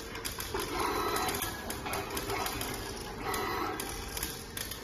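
Automatic screw-driving machine cycling: servo motors of the gantry and servo screwdriver whirring in repeated short spells about every second or so as the head moves and drives screws.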